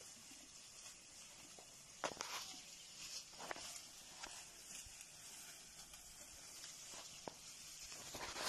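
Faint snapping of twigs and rustling of brush as a herd of wild Sri Lankan elephants walks through scrub, with a few sharp cracks scattered through, over a steady high hiss.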